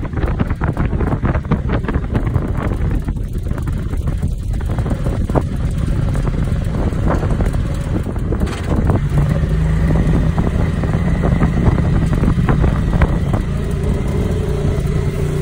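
Wind buffeting the microphone from an open-sided vehicle moving along a road, over the vehicle's engine and road noise. From about nine seconds in a steady engine hum comes through more clearly.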